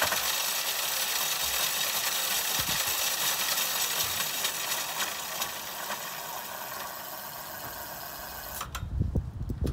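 Razor E300's upgraded 24-volt electric motor running flat out, switched straight on by a relay that stands in for the speed controller, so it gets full power with no speed control: a steady high whine with hiss. It cuts off suddenly near the end.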